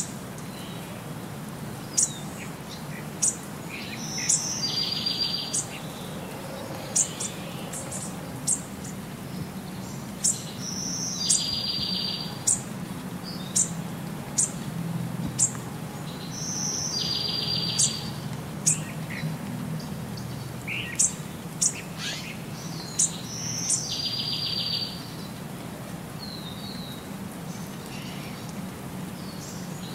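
Birds chirping, with sharp high chirps throughout and a short buzzy trill that recurs about every six seconds, over a steady low background hum.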